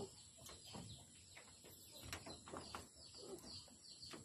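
Near silence with faint bird chirps, short falling chirps repeated now and then.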